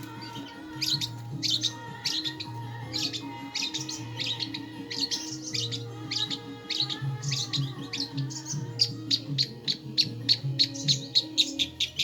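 Recorded song of the long-tailed shrike (cendet), played as a lure track to coax young or reluctant birds into singing. It is a stream of varied chirps and call notes that turns into a fast run of short repeated chirps over the last few seconds, with a low droning music bed underneath.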